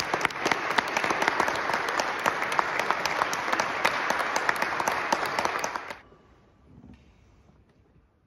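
Audience applauding with many hands clapping, which stops suddenly about six seconds in.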